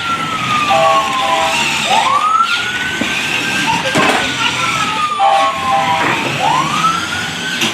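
Electronic fire-truck siren from a toy fire truck: a tone sweeps quickly up, holds, then slides slowly down, in a repeating wail. Short steady lower tones sound twice under it, along with a few knocks.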